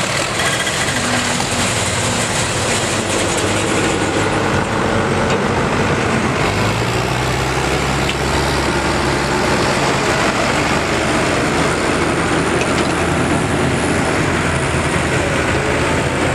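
Farm tractor engines running at low speed, a steady mechanical drone, with a deeper engine note coming in about six and a half seconds in and easing off around ten seconds.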